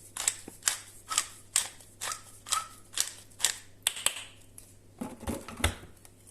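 Pepper mill grinding black pepper: a steady run of short crunching twists, about two to three a second, for about four seconds, followed by a couple of knocks near the end.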